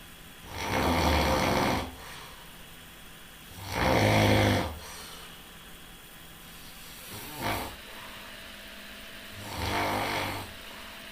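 Loud snoring from a sleeper: a buzzing snore roughly every three seconds, four in all, the third short and weak, with quieter stretches between.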